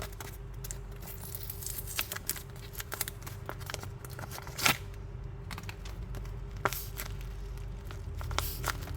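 Plastic blind-bag packaging being torn open and crinkled by hand: a run of small crackles and rustles, with one sharper, louder tear about halfway through.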